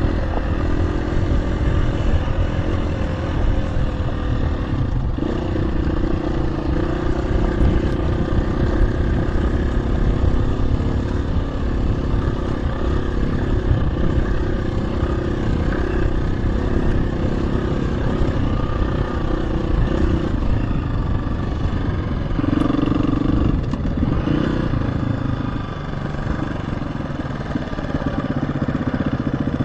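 KTM 350 EXC-F's single-cylinder four-stroke engine running under way, its note rising and falling with the throttle over a heavy low rumble. It eases off briefly near the end.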